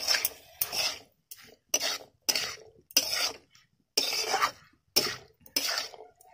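Metal spatula scraping and clanking in a kadai as cooked vegetables are stirred and tossed, short strokes about two a second with brief pauses between.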